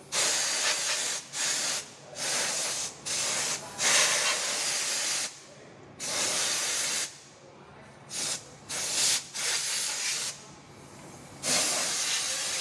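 Compressed-air spray gun hissing in irregular bursts of about half a second to a second and a half each, with short gaps between, as it is worked over a truck engine to clean it.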